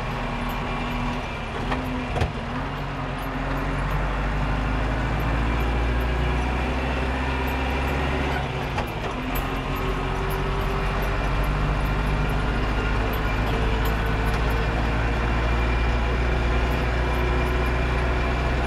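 Landini Blizzard 65 tractor engine running in road gear, heard from inside the cab, pulling harder over the first four seconds and then holding steady. A sharp knock about two seconds in and light rattles come from the stiff tractor bouncing on the track.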